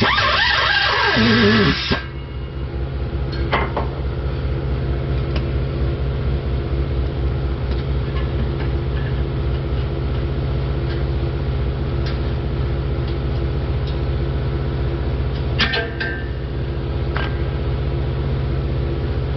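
A loud wavering sound cuts off about two seconds in. It leaves a steady low machine hum, broken by a few sharp clicks and taps.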